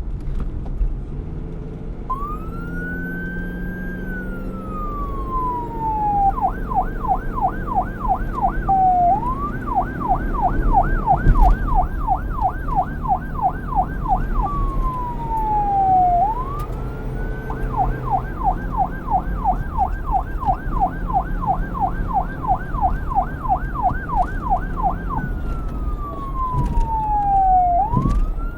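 Electronic police car siren switching between a slow wail, rising to a high pitch and then sliding slowly down, and a fast yelp of about three sweeps a second. It goes wail, yelp, wail, yelp and wail again, over a low vehicle rumble.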